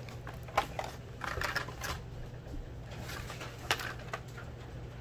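Blister-carded Hot Wheels cars being handled, pulled from a cardboard case and set down on a stone countertop: light plastic clicks, card rustling and a few taps, the sharpest click about three and a half seconds in.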